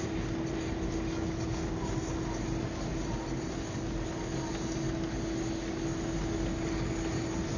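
Steady engine and road noise of a car driving slowly on a packed-snow street, heard from inside, with a constant hum running under it.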